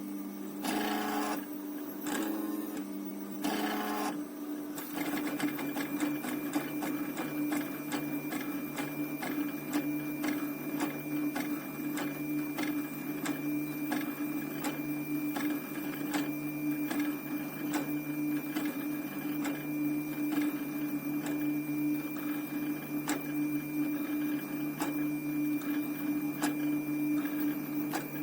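Small stepper motors of a homemade 3D printer built from old CD drive mechanisms, running: a steady whine with fast fine ticking, its tones shifting about five seconds in and then holding steady.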